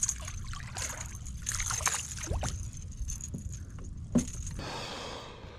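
A hooked smallmouth bass splashing and thrashing at the surface beside a kayak while it is reeled in, with water sloshing and scattered short splashes and clicks.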